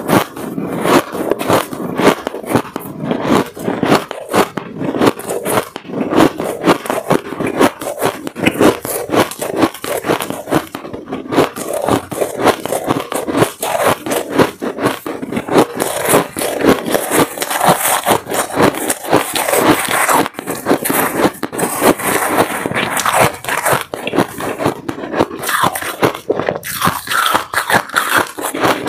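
Mouthfuls of finely shaved ice crunching as they are chewed close to the microphone, a dense run of irregular crackly crunches. A metal spoon scrapes and scoops through the shaved ice in the bowl.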